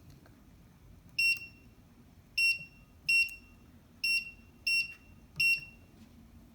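Electronic keypad of an Amazon Basics steel security safe: six buttons pressed one at a time, each press a click with a short, high beep, as a passcode is punched in at an uneven pace.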